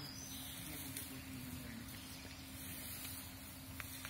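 A steady low hum over a faint even background hiss, with no distinct events.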